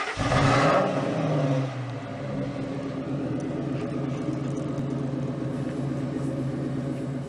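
Ford F-250's V10 engine revving, its pitch falling back over about a second into a steady idle.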